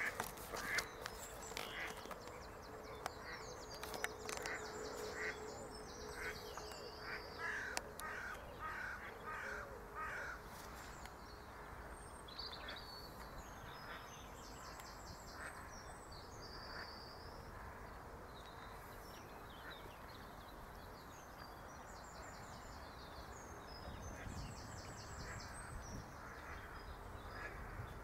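Wild birds calling and singing: short high songbird phrases recur every few seconds, and in the first ten seconds or so there is a run of lower repeated calls. A few knocks from handling the camera come at the very start.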